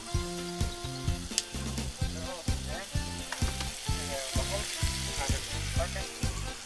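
Strips of shoarma meat sizzling as they fry in a pan, stirred with a wooden spoon, over background music with a steady beat.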